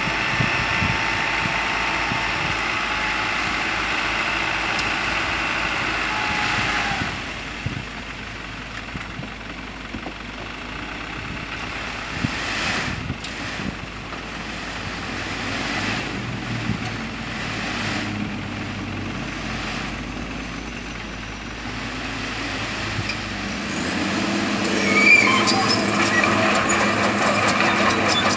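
Light dump truck's diesel engine running at raised speed while the hydraulic hoist tips the loaded bed, with a steady held tone. About seven seconds in the level drops as the bed stays up to dump its soil, and the engine picks up again near the end.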